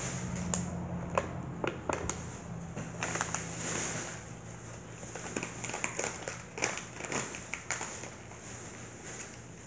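Scattered crinkling and rustling handling noise close to the microphone, made up of many small irregular clicks and crackles.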